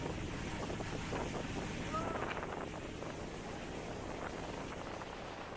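Wind buffeting the microphone and water rushing past a speedboat moving at speed across a lake, a steady noisy rush.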